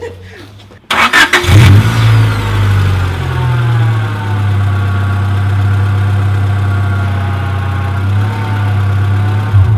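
A car engine cranks and catches about a second in, settles into a steady idle, and cuts off abruptly near the end.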